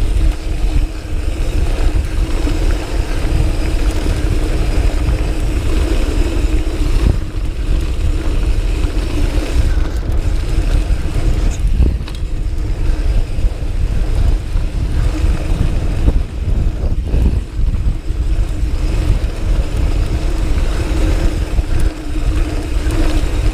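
Wind buffeting the microphone over the rumble and rattle of a Diamondback Sync'r hardtail mountain bike's tyres rolling fast down a dirt singletrack descent. A steady hum runs underneath, with a few sharp knocks from the bike over bumps.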